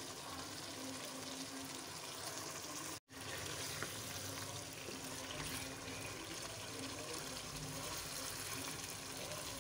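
Chicken and tomato-onion masala sizzling in oil in a wok as it is stirred with a wooden spoon during the bhuna (frying-down) stage. A steady hiss, broken off for a moment about three seconds in.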